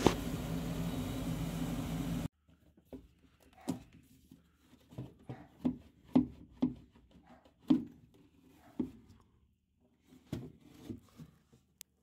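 Amana gas furnace's draft inducer (vent) motor running steadily with water backing up into it, a sign of a blocked vent drain. It cuts off abruptly about two seconds in, followed by scattered light knocks and clicks of hands handling the inducer motor and its drain hoses.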